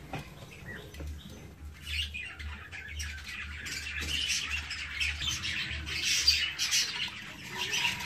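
A flock of budgerigars chirping and chattering, many quick overlapping calls that grow busier about two seconds in, over a faint low hum.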